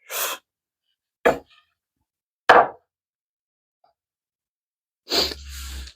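Workshop handling sounds on a bench: a brief rustle, then two separate knocks about a second apart, and a short scraping rustle near the end, as tools and the drilled workpiece are moved and set down.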